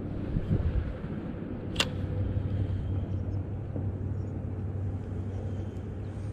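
Steady low hum with wind rumbling on the microphone, broken by a single sharp click about two seconds in.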